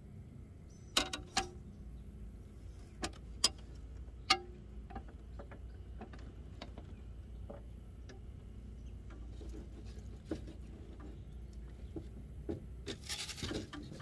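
Scattered sharp clicks and light knocks from handling a spincast fishing rod and reel, loudest in the first few seconds, with a short rattling burst near the end. A steady low wind rumble runs underneath.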